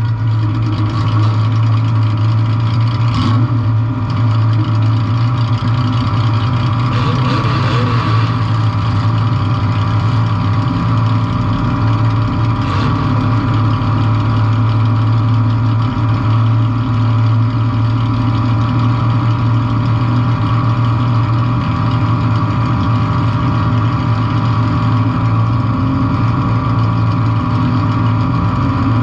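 Demolition derby compact car's engine running steadily and loud, with a few brief knocks about 3, 8 and 13 seconds in.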